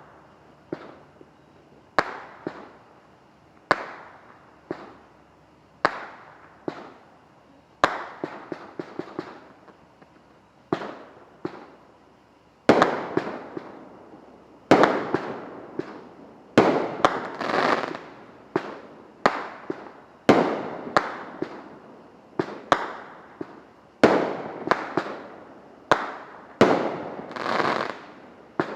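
Liberty Bell brand consumer fireworks going off: a string of sharp bangs about once a second. From about halfway through, many bangs are followed by a crackling tail.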